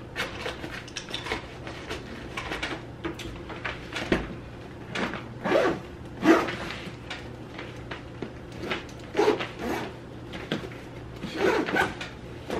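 Padded fabric camera bag being packed and closed by hand: irregular rustles, scrapes and soft knocks of nylon and gear.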